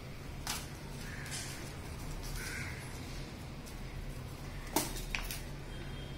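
Paper-craft handling: light rustling and a few sharp clicks as pieces of chart paper are glued and pressed together, the loudest a pair of clicks near the end, over a steady low hum.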